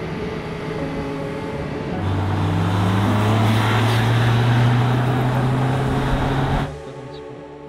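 BMW M3 Touring's twin-turbo inline-six accelerating hard. After a couple of seconds of road noise, the engine note climbs slowly and gets loud over heavy tyre and wind noise, then cuts off abruptly near the end.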